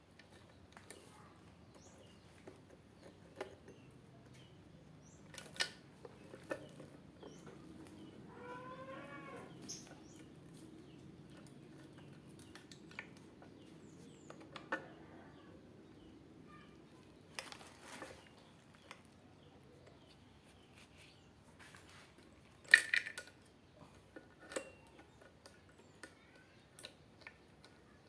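Scattered light metal clicks and clinks from handling chainsaw parts and tools during bar and chain fitting, with one sharper knock about three-quarters of the way through.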